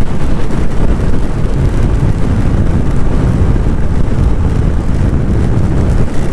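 Loud, steady low rumble of wind buffeting the microphone on a motorcycle riding at speed through rain and strong crosswind.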